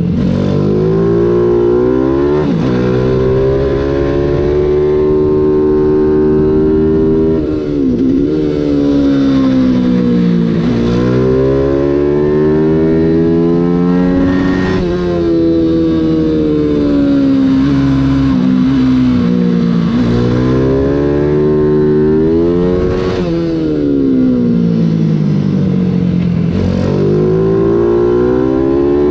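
Mini GP 140 race bike's small single-cylinder engine at racing speed, heard from on board. It revs up hard through the gears, its pitch climbing and dropping sharply at each gear change, then falling away as the bike slows for corners, over and over through the lap.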